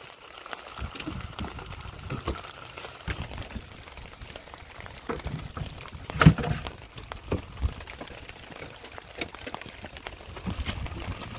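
Light drizzle pattering on the boat and the sea, with small scattered knocks from fishing gear being handled on the wooden boat. One louder knock comes about six seconds in.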